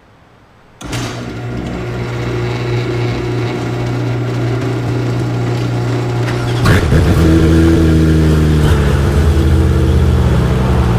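Porsche 911 GT3 Cup's 4-litre six-cylinder boxer engine starts up suddenly about a second in and runs steadily, growing louder. About two-thirds of the way through there is a sharp click, after which the engine note shifts and wavers in pitch.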